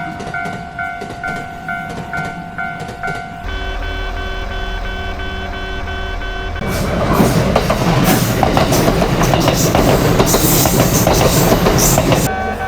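Japanese railway level-crossing bell ringing in a steady rapid clang. Its tone changes a few seconds in as a low train rumble rises under it. From about halfway a train passes loudly with clacking wheels, drowning the bell, which can be heard again near the end.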